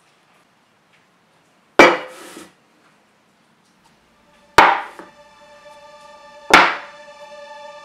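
Three sharp knocks a couple of seconds apart, each with a short metallic ring, as empty tin cans are set down on a hard table. Background music with held notes comes in after the second knock.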